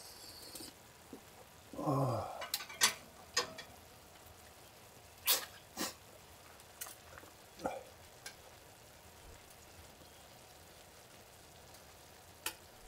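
Objects being handled: a short creak falling in pitch about two seconds in, then a scattered string of sharp clicks and knocks, with a last click near the end.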